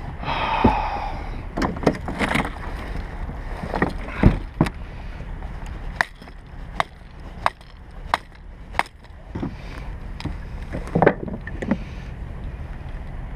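Irregular knocks and clicks of gear being handled on a plastic kayak, over a steady low background of water and wind, the loudest knock about four seconds in and a few more together near eleven seconds.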